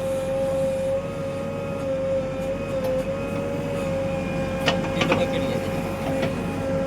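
JCB 3DX backhoe loader's diesel engine running steadily, a low rumble under a constant high whine, with a few brief knocks about five seconds in.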